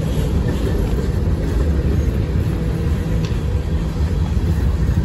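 Freight cars of a manifest train rolling past close by, centerbeam flatcars and gondolas: a steady, loud rumble of steel wheels on the rails.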